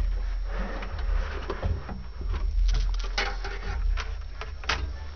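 Handling noise as a floor panel is fitted over wires: scattered knocks, clicks and rustling, several sharper taps in the second half, over a low steady rumble.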